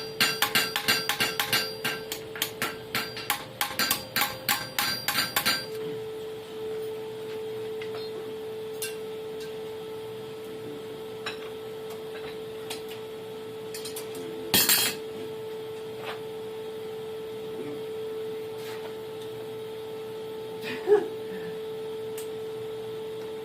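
Hand hammer striking hot steel on an anvil in quick, ringing blows, about four a second, while a striker is forged; the hammering stops after about six seconds. A steady hum carries on underneath, with one short loud burst of noise about halfway through.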